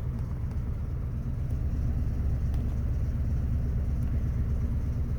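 2000 Toyota Tundra's 4.7-litre V8 running at a steady low idle while misfiring on cylinders 6 and 8, from crossed coil wires and a broken ignition coil connector.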